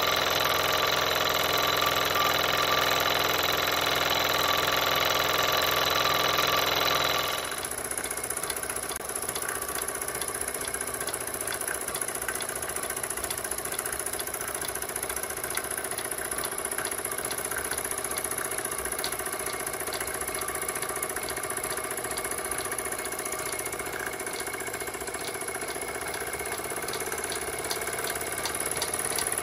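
Jensen 25GR toy steam engine running steadily with an even, fast beat. About seven seconds in the sound cuts to a quieter run with fast, even ticking.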